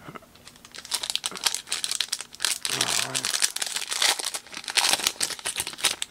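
Foil wrapper of a Prizm Draft Picks basketball card pack crinkling and tearing as it is ripped open by hand, a dense run of rapid crackles starting about a second in.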